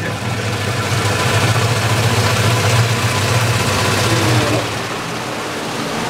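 Singer SWM97108X top-loading washing machine's tub spinning on its motor: a steady low hum under an even whooshing noise, easing slightly a little past the middle.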